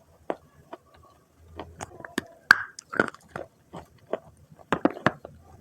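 Biting and chewing dry red clay: irregular soft crunches, the sharpest near the middle and a quick run of them near the end.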